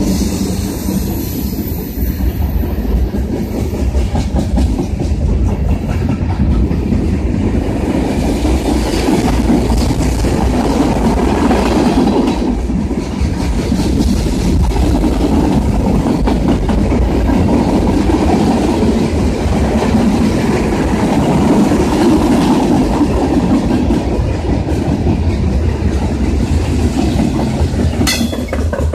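Freight cars of a CSX mixed freight train rolling past close by: a steady, loud rumble of steel wheels on rail with repeated clacks over the rail joints.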